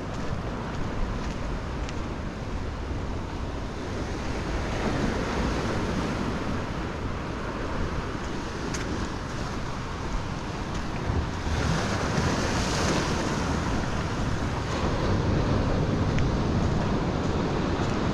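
Surf washing and breaking against a rocky shoreline, a steady rush of waves with wind buffeting the microphone. The wash swells about five seconds in and louder again around twelve seconds.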